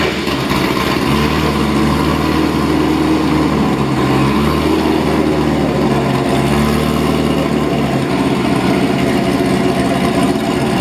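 Supercharged 6.2 L LT4 V8 of a C7 Corvette Z06 with an aggressive aftermarket cam, running at a steady warm-up idle just after its first start on a base tune. The cam is already audible in the idle. The note firms up about a second in.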